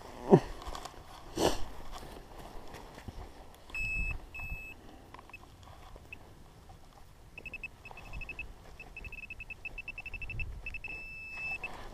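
Two dull thumps of a digging tool going into turf, then a metal detector's high target beep: twice, then rapid pulsing beeps that merge into one steady tone near the end as the detector closes on a buried metal object.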